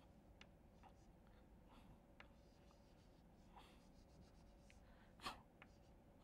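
Chalk on a chalkboard, faintly tapping and scratching in short strokes while drawing, with one brief louder sound about five seconds in.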